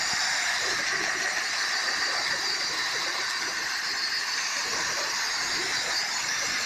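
Steady, even hissing noise with no breaks.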